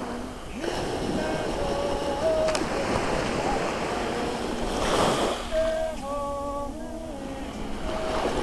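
A group of women singing a melody together in long held notes while they dance, over steady wind and surf noise. A brief loud rush of noise about five seconds in.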